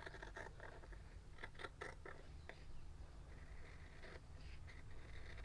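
Faint scissors snipping through cloth and tape, a few short clicks close together about one and a half to two and a half seconds in.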